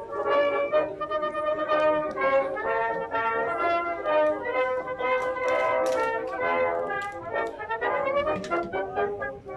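Music played on brass instruments, a run of changing held notes.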